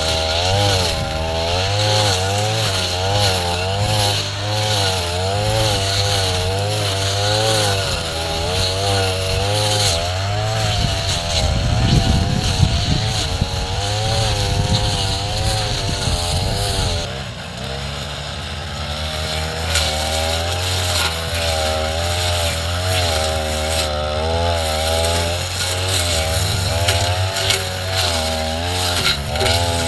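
Two-stroke brush cutter running hard while cutting tall grass. Its pitch wavers up and down as the load changes. A rough low rumble joins it for a few seconds near the middle, and at about 17 seconds the engine eases to a lower speed before picking back up.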